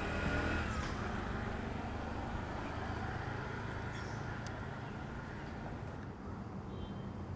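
Steady outdoor street background noise with distant traffic. The hiss thins near the end.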